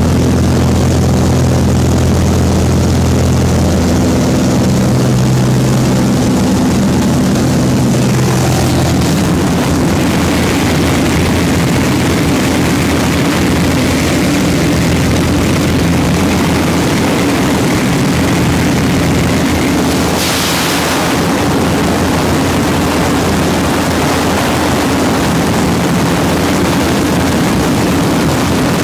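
Small survey aircraft's engine droning steadily, heard inside the cabin. The low hum shifts in pitch about nine seconds in, and a brief hiss rises about twenty seconds in.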